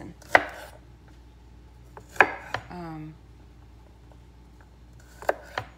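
Chef's knife cutting garlic cloves on a wooden cutting board: sharp knocks of the blade on the board, one near the start, a pair about two seconds in, and another pair near the end.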